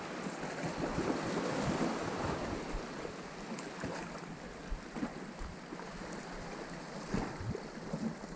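Small sea waves washing over a rocky shore ledge, with wind buffeting the microphone. A few short knocks sound through the wash.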